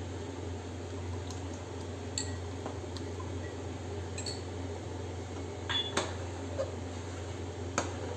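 Flour-and-water slurry poured into boiling soup in an aluminium pressure cooker, over a low steady hum, followed by a few sharp clinks of a steel spoon against the pot as the stirring begins near the end.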